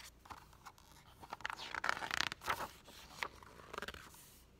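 Pages of a hardcover picture book being turned: dry paper scraping and rustling, loudest about two seconds in, with a few light clicks.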